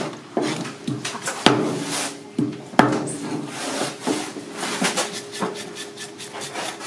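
Kitchen knife scraping the scales off a lionfish on a cutting board: quick, repeated rasping strokes, with two sharper knocks about one and a half and three seconds in.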